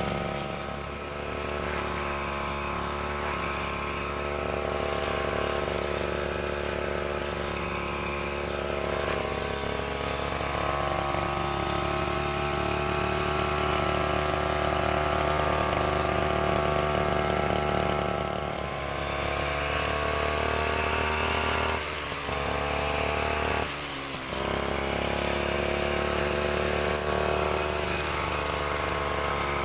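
Stihl FR 3001 backpack brush cutter engine running steadily with a steel weed trimmer head fitted. The engine note wavers gently, and it dips briefly twice about three-quarters of the way through.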